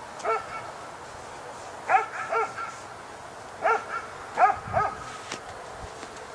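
A dog barking, a single bark and then short groups of two or three barks.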